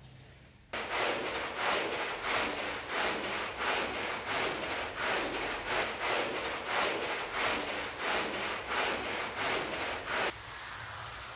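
A stiff brush scrubbing a heavily soiled rug in quick, even strokes, about three a second. It starts abruptly about a second in and stops near the end, leaving a steady hiss.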